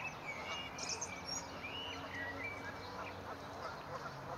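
Newborn swan cygnets peeping: many short, high calls that overlap and bend in pitch.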